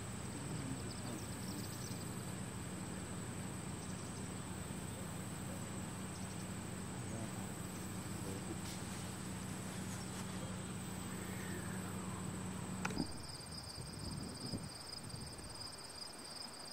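A steady low hum over outdoor background hiss; about thirteen seconds in it cuts off abruptly, giving way to insects trilling steadily on one high note.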